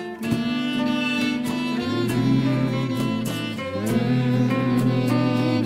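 Instrumental break in a song, without singing: held melody notes over sustained chords.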